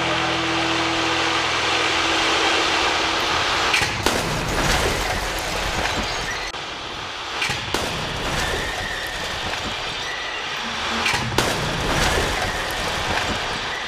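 Car crash-test impacts: a continuous rush of noise with several sharp bangs and cracks, the first about four seconds in and more around the middle and near the end, as cars strike barriers and glass and parts break.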